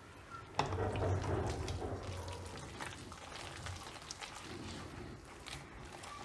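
Hand mixing thick, wet chickpea-flour and fenugreek batter in a stainless steel bowl: irregular squelching and slapping with small knocks against the bowl. A sharp knock comes about half a second in, and the squelching is loudest for the next second or two.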